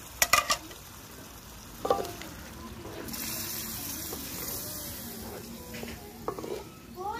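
Wooden spatula stirring a simmering mung bean and pork stew in an aluminium pan, with a few sharp knocks against the pan just after the start and again later, over the steady hiss of the cooking stew.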